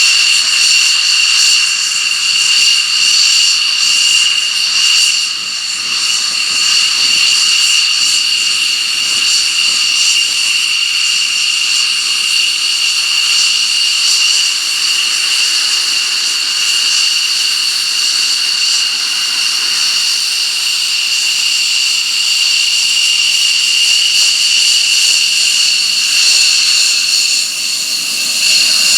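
Jet engine running steadily with a loud, high-pitched whine over a rushing hiss, dipping slightly in level twice.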